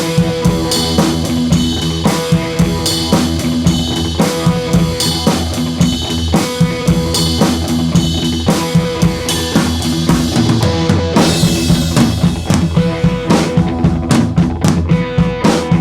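Background music with a driving drum-kit beat of kick and snare over sustained bass and synth notes; the drum hits grow faster and sharper near the end.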